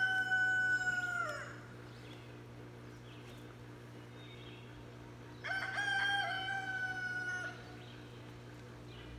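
A rooster crowing twice, each crow a long drawn-out call, the second starting about four seconds after the first ends.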